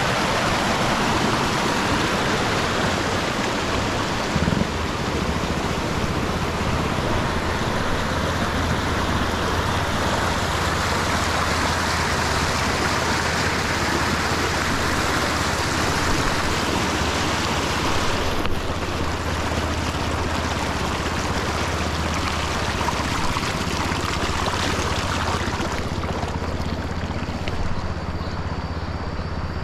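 Shallow, clear river rushing over boulders and small rapids: a steady, even rush of water. A low steady rumble runs underneath from about six seconds in, and the rush eases a little near the end.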